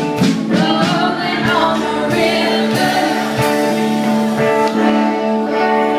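Live band playing: singing with electric guitar accompaniment, with long held notes.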